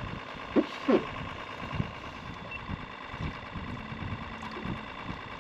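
A boat motor running steadily with an even hum. Two short sounds come about half a second and a second in.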